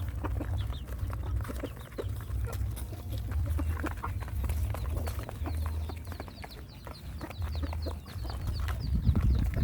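Dogs and puppies eating, with many small clicks of chewing and lapping over a steady low rumble; a run of short high squeaks comes in during the second half.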